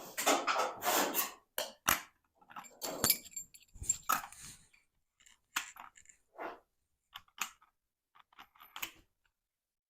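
Irregular clinks, clicks and short knocks of metal parts and tools being handled, with brief gaps between them; the denser clatter is in the first second.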